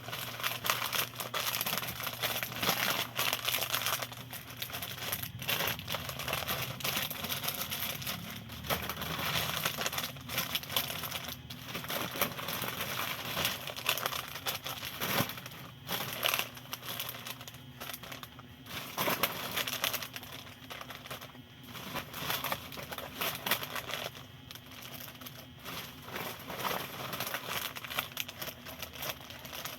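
Plastic snack packet crinkling as it is handled, with irregular crackles and small clicks.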